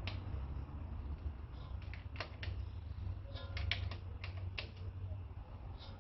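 Needle-nose pliers clicking and scraping on a rear brake caliper piston as it is wound clockwise back into the caliper: a scatter of irregular sharp metallic clicks, bunched about two seconds in and again near the middle.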